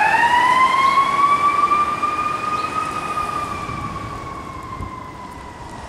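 Fire engine siren wailing: the pitch rises over about three seconds, then slowly sinks, and the siren grows fainter as the engine moves away.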